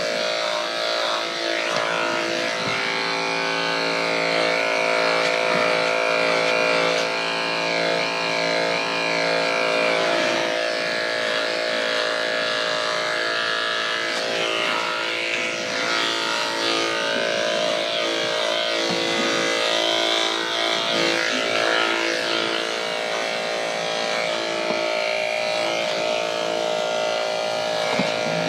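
Electric dog grooming clippers with a #10 blade running, a steady motor buzz whose tone shifts as the blade moves through a terrier mix's coat.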